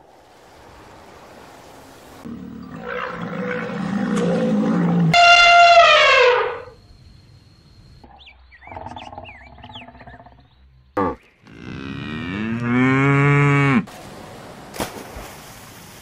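Cattle mooing: several long calls from separate clips, with abrupt cuts between them. The loudest call, about five seconds in, slides down in pitch, and another, about twelve seconds in, rises and then falls.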